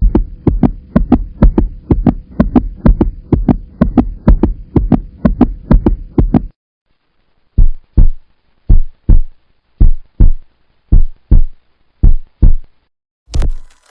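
Heartbeat sound effect: deep thumps at a fast rate of about four a second that stop suddenly about halfway through. After a short pause it comes back slower, as paired lub-dub beats about a second apart.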